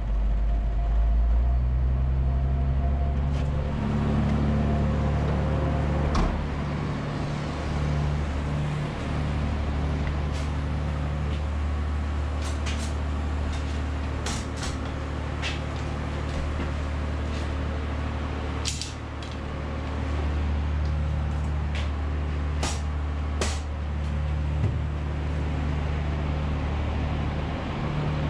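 MB Trac 1600 tractor engine running steadily while driving, pulling a slurry feeder tanker, heard from inside the cab with the roof hatch open. The engine note shifts slightly and dips briefly past the midpoint, and scattered sharp clicks and rattles come through in the middle part.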